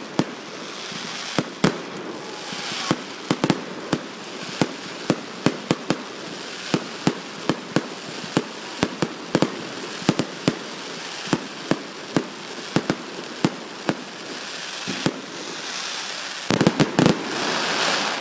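Fireworks display: aerial shells going off in an irregular string of sharp bangs over a steady crackling hiss, with a rapid cluster of bangs near the end.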